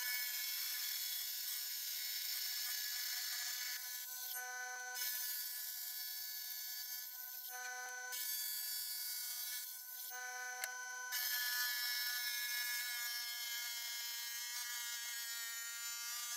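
Electric wet tile saw running with a steady whine while an agate nodule is pushed through its blade. The sound shifts briefly three times, about four, seven and a half and ten seconds in.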